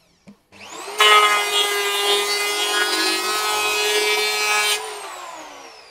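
TOTAL TL7508226 750-watt electric planer switched on and spinning up, then cutting along a wooden board in one loud, even pass from about a second in for nearly four seconds. The pass ends abruptly and the motor winds down in a falling whine.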